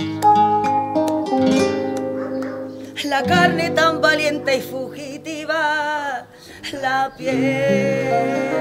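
Live acoustic guitar and a singer. The guitar is plucked alone for about three seconds, then the voice comes in over it with long held notes and a marked vibrato.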